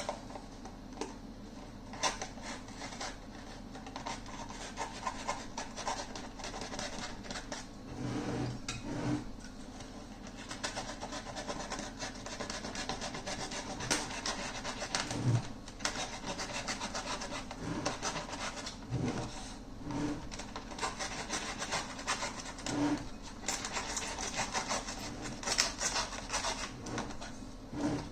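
A blade cutting and scraping through the dust cap of a loudspeaker woofer: irregular scratching and rasping strokes, with a few soft knocks.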